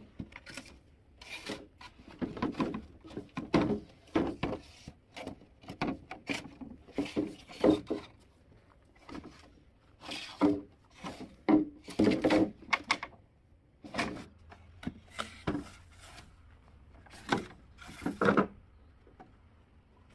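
Irregular knocks and scrapes of wood being worked by hand, about one or two a second.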